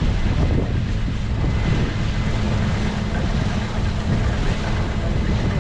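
Large harvest-machinery engine running steadily: a constant low drone with mechanical noise over it.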